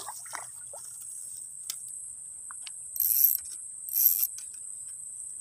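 Small spinning reel (Fugu Eiji 1000) cranked in two short bursts about a second apart, reeling in a hooked snakehead. A steady high-pitched insect drone runs underneath.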